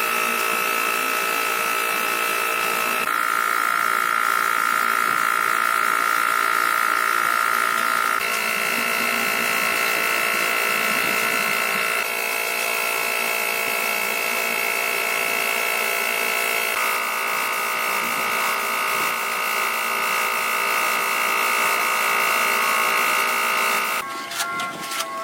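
A small electric motor whining steadily at a high pitch, its tone shifting in sudden steps several times.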